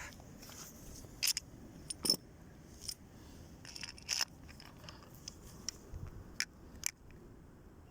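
Metal engine parts being handled: scattered clicks and clinks with a little scraping, the sharpest a little past one second, just after two seconds and around four seconds.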